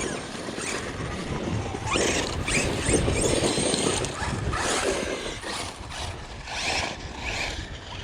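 Large electric RC off-road truck being driven hard on dirt: the motor whines up and down in short bursts of throttle over the tires spinning and scrabbling, loudest about two to three seconds in.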